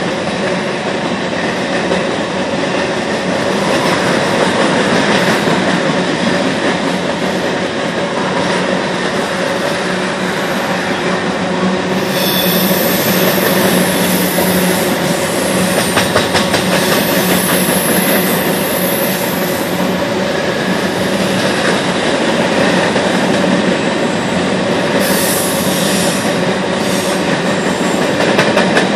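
Covered hopper cars of a CSX phosphate train rolling past on the rails with a steady rumble and clatter. A high-pitched wheel squeal sets in about twelve seconds in, lasts several seconds, and comes back briefly near the end as the wheels grind through the curve.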